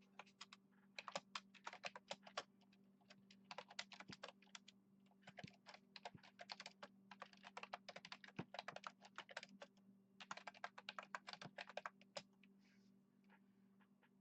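Typing on a computer keyboard in several quick bursts with short pauses between them, most likely entering a website address. A faint steady hum runs underneath.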